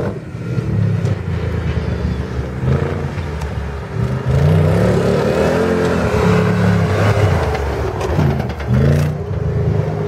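Mercedes G-Class off-roader's engine revving up and down in repeated rising and falling sweeps as it is driven hard over a dirt course, getting louder about four seconds in as it comes closer.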